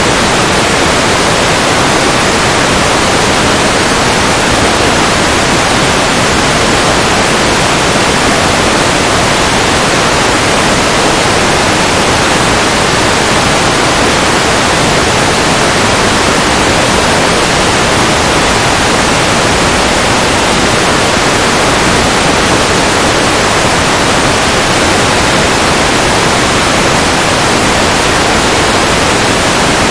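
Loud, steady static hiss from an analog FPV video receiver with no signal. The video link from the aircraft is lost and the picture is all snow.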